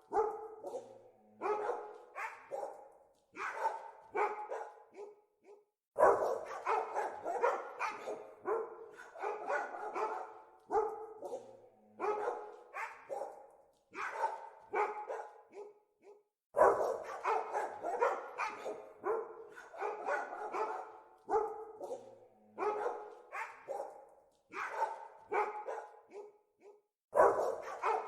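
Dogs barking in quick runs of sharp barks, each run broken by short pauses, with louder bursts of barking starting about six, sixteen and twenty-seven seconds in.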